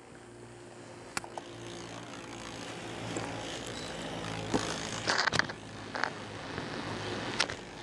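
Beyblade Death Quetzalcoatl 125RDF spinning on its rubber flat tip in a plastic stadium, with a steady whir. A click about a second in and a few brief scrapes or knocks, the loudest about five seconds in.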